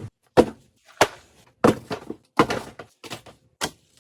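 A series of short, hard thunks, about one every two-thirds of a second, with silence between them.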